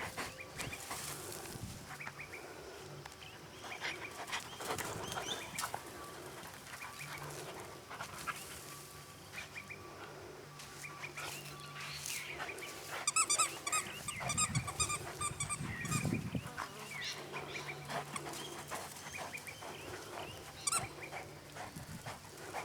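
A dog sniffing and moving about, with a quick run of short high chirping calls about thirteen seconds in.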